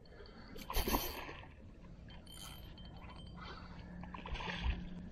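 Water splashing and sloshing as a hooked redfish is played on a spinning rod from a kayak, with a short louder splash about a second in and a faint low hum in the last second and a half.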